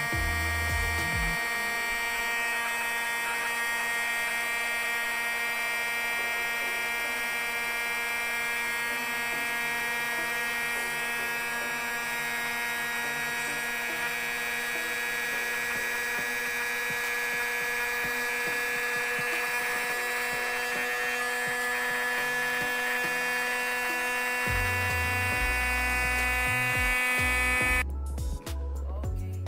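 Small 240V electric air pump running steadily, inflating the top ring of an inflatable paddling pool: a high, even motor whine with many overtones. Its pitch sags slightly as the ring fills, and it cuts off abruptly near the end.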